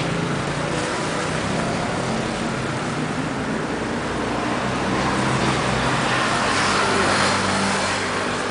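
Road traffic: a motor vehicle's engine running steadily nearby, with a low hum that swells a little near the end.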